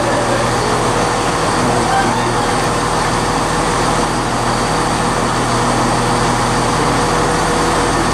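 Steady rumble and hum from a Southeastern Class 375 Electrostar electric multiple unit moving away along the platform, with no clear rise or fall in pitch.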